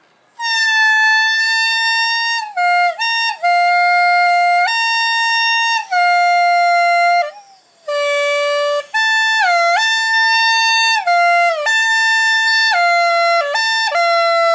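Homemade syringe-and-straw horn being blown, playing a series of held notes at several different pitches, with short breaks between them and quick dips in pitch where the notes change.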